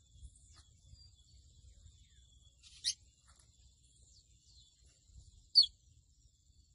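Slate-colored seedeater (mochuelo pico de plata) singing: scattered thin, high chirps and quick down-slurred notes, with two sharp, much louder notes about halfway through and again near the end.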